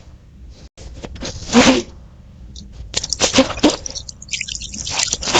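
Water splashing and scrubbing as a muddy plastic toy is washed. The sound grows busy and crackling in the second half, with one short louder sound about one and a half seconds in.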